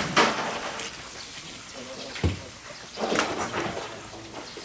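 Knife cutting into the thick skin of a giant ocean sunfish: a few short, sharp scraping strokes, with one dull thump a little over two seconds in.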